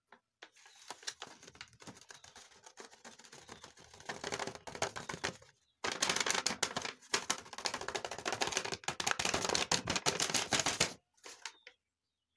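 Match-head compound crunching and paper crinkling as a bottle is pressed and rolled over it in a folded sheet of paper, grinding the coarse grains to powder. A dense, rapid crackle, faint at first and loudest from about six seconds in until near the end.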